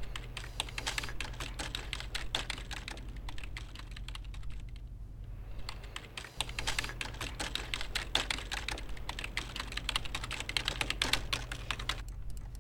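Typing on a computer keyboard: rapid runs of key clicks, with a pause of a second or two around the middle, over a steady low hum.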